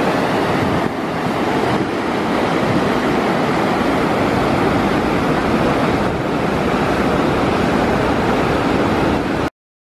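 Loud, steady rush of water running through a mill race, cutting off abruptly near the end.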